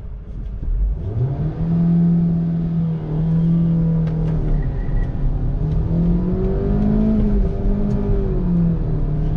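Hyundai i20's 1.2-litre four-cylinder petrol engine accelerating hard from a standstill, heard inside the cabin. The engine note climbs about a second in and dips briefly and rises again as it changes gear.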